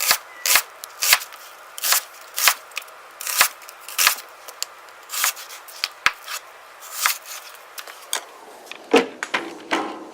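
A kitchen knife chopping on a cutting board, one stroke about every half second with a somewhat uneven rhythm.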